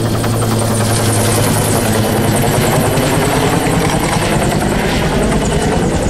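Two-bladed helicopter flying overhead, its rotor beating steadily and loudly.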